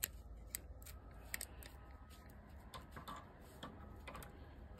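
Faint, irregular light clicks of 7-inch adjustable pliers' metal jaws and pivot being handled and opened, over a low steady rumble.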